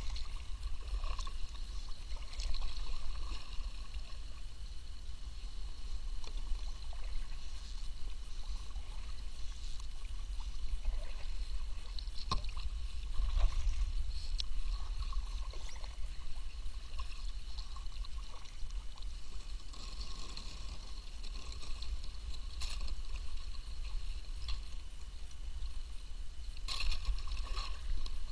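Kayak paddling on calm water: the paddle dips and drips, and water laps at the hull as the kayak glides, over a steady low rumble.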